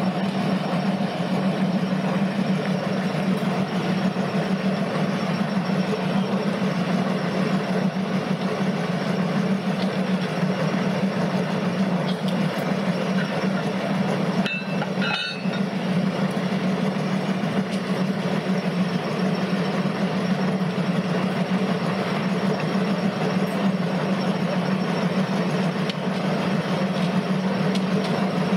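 Class 03 diesel shunter D2133's Gardner eight-cylinder engine idling steadily while the locomotive stands still, with a brief dip about halfway through.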